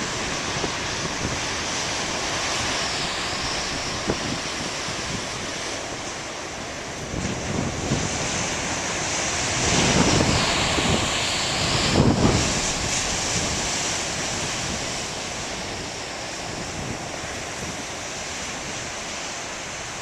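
Large ocean waves breaking on a beach, a steady surf roar with wind buffeting the microphone; it swells louder as a set crashes about halfway through, peaking twice about two seconds apart.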